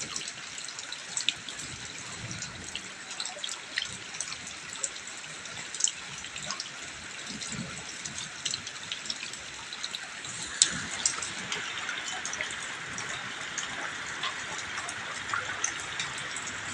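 Steady rain falling, with many separate drops ticking and splashing through the hiss; it grows a little heavier about two-thirds of the way in.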